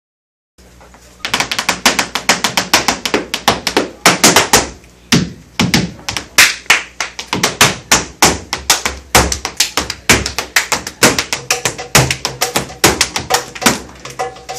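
Flamenco footwork (zapateado): sharp heel and toe strikes of flamenco shoes on the floor, several a second, starting about a second in, with a brief lull near five seconds.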